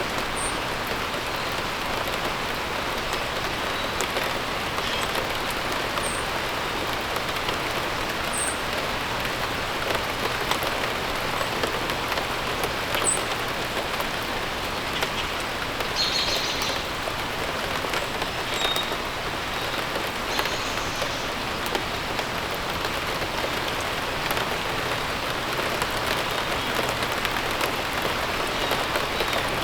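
Steady rain falling, an even hiss, with occasional short high bird chirps.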